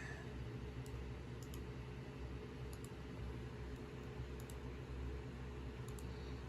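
Several faint, irregular computer clicks, some in quick pairs, over a steady low hum.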